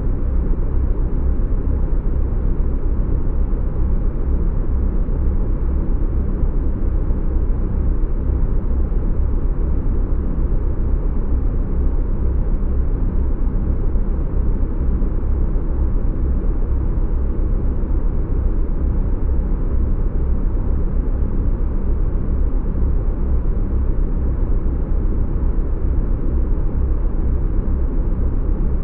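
A steady, unchanging low rumble, heaviest in the deep bass, with no rises, falls or hits.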